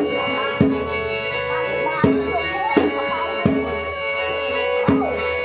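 Traditional ritual music for a mamuad spirit-medium ceremony. A drum strikes sharply in a repeating, uneven pattern, about six strokes, over steady droning tones and a wavering melody.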